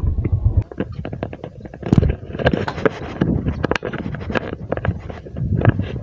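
Wind buffeting the microphone with handling noise: rumbling and many irregular clicks and knocks as the camera is carried and jostled. The low rumble stops about half a second in.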